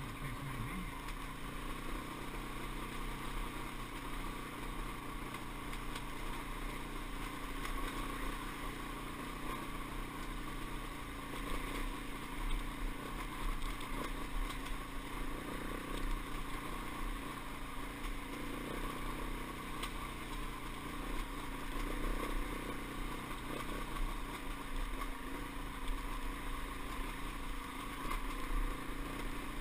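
Dirt bike engine running steadily under way on a rocky trail.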